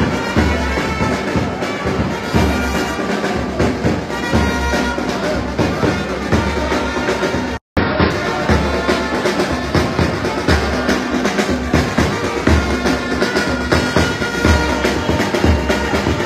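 Brass band playing, horns holding notes over drums with a regular low beat. The sound cuts out for a moment about halfway through.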